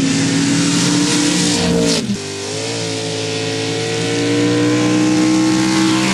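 Sand drag racing truck engines at full throttle, revving hard down the track. The sound breaks off abruptly about two seconds in, and another engine takes over, running steadily at high revs.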